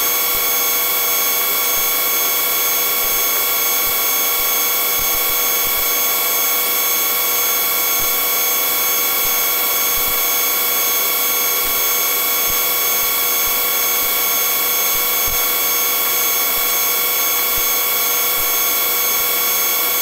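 Police helicopter's turbine engine and rotors running steadily, heard as a constant rushing hiss with several fixed, unchanging whining tones.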